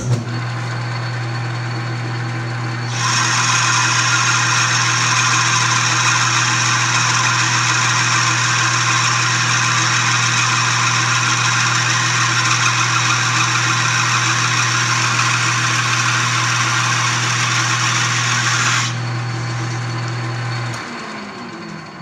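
A South Bend 13-inch lathe's motor switches on and runs with a steady hum. About three seconds in, a loud even hiss of the cutting tool turning the bronze bar begins, with a brush held against the spinning work. The hiss stops near the end, then the motor shuts off and the spindle coasts down with a falling whine.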